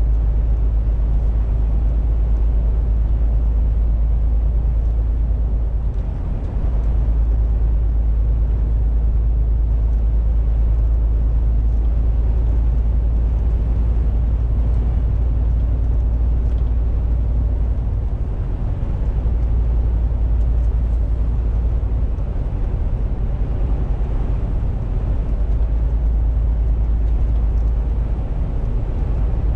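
MAN TGX 470 truck's 12.4-litre six-cylinder diesel engine and road noise heard from inside the cab while cruising, a steady low rumble with a brief dip about six seconds in.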